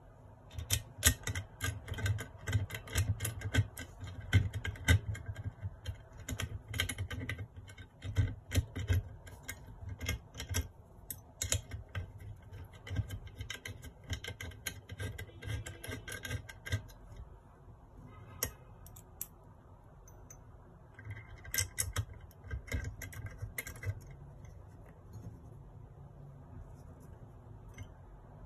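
Small metal parts and a tool clicking and tapping against a metal Stirling engine model kit as it is assembled by hand. The clicks come in dense runs through the first half, then a pause and a few shorter bursts, fainter near the end.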